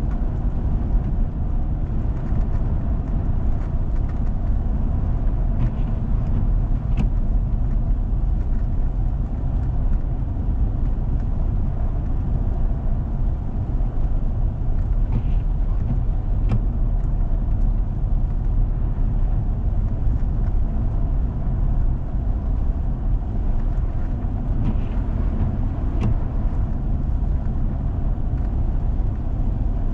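A four-wheel-drive vehicle driving on a snow-covered road: steady low rumble of engine and tyres, with a few faint clicks now and then.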